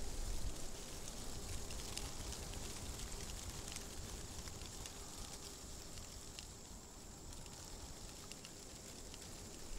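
Stock outdoor nature ambience laid over the pictures: a steady high hiss with scattered faint crackles and a low rumble underneath.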